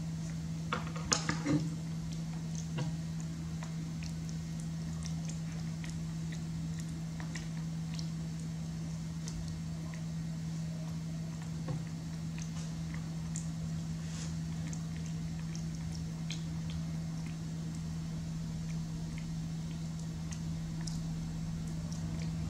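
Faint handling sounds of a baby monkey fiddling with a leaf-wrapped snack over a plastic bowl: a brief cluster of clicks and knocks about a second in, then scattered faint clicks and rustles, over a steady low hum.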